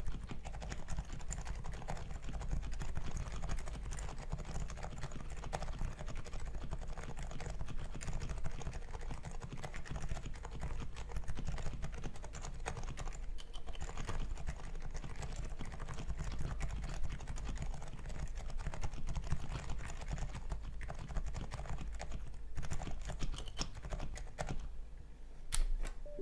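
Continuous typing on a custom keyboard built with Topre electro-capacitive switches (lubed 45 g Realforce purple sliders) on a steel plate in a polycarbonate case. It is a dense, steady run of keystrokes, with one sharper stroke near the end.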